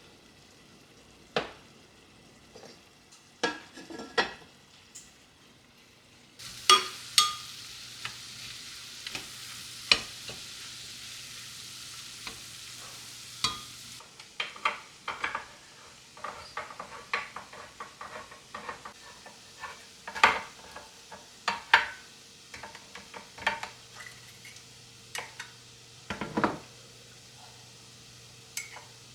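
Food sizzling as it fries in a pan, with a utensil knocking and scraping against the pan as it is stirred. The sizzle starts suddenly a few seconds in and cuts off about halfway through; stirring knocks continue throughout.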